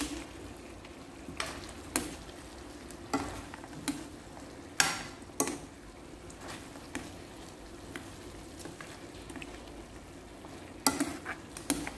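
A ladle scraping and knocking against a wok as pork adobo is stirred, in strokes about a second apart with a quieter pause before a last flurry near the end. Under it the sauce simmers with a steady sizzle.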